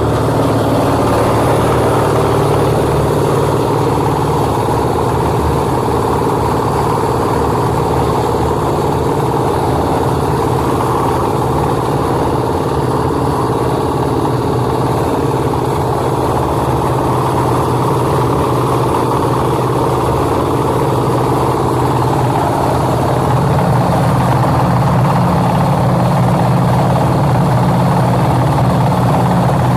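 Portable concrete mixer's engine running steadily, turning the drum, with a slight rise in level and a shift in its low hum about two-thirds of the way through.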